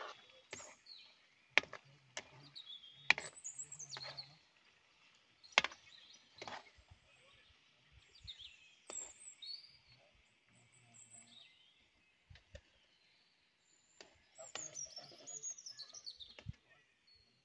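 Birds chirping, with quick falling trills, over scattered sharp clicks and knocks of a metal spoon against a wok as bananas are turned and lifted from the frying oil.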